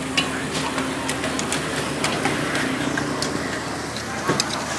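Meat chunks sizzling on a hot charcoal grill grate: a steady hiss broken by many sharp crackles and clicks as fat spits and the tongs touch the grate, over a steady low hum.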